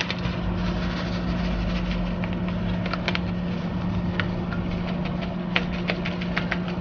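Steady low motor hum over a haze of noise, with a few light clicks about three, four and five and a half seconds in.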